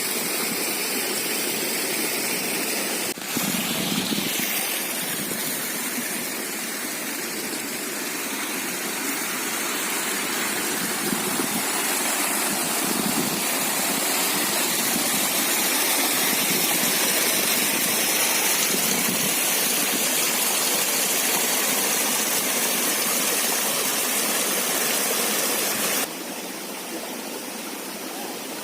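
Steady rush of river water flowing, with the level dropping suddenly near the end.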